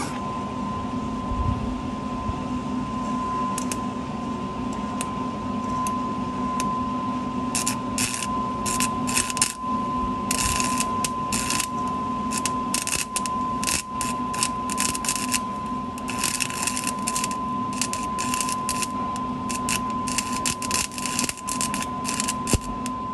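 Stick (arc) welding: the electrode arc crackles and sputters in irregular bursts, starting about a third of the way in and coming in several runs, over a steady hum and tone from the welding machine.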